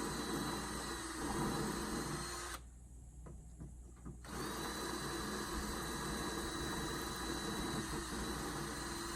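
Power drill running steadily while boring a mounting hole, stopping for about a second and a half midway and then starting again.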